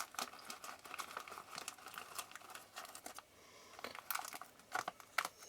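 Soft crinkling of plastic packaging as a pack of thin cotton bud refills is handled and opened: a run of small crackles for about three seconds, a short pause, then a few more crackles near the end.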